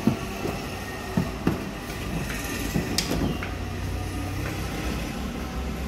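Plastic housing of an AC-style wall fan knocking and clicking against its wall bracket as it is hung: a few short, sharp knocks over a steady low rumble.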